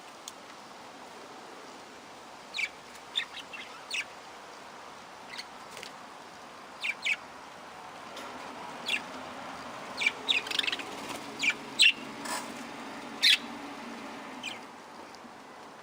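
Small parrots chirping: short, separate high calls at irregular intervals, busiest and loudest in the second half.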